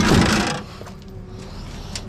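A loud scraping clunk of a heavy metal machine being shoved onto a pickup's tailgate, lasting about half a second, over a steady hum.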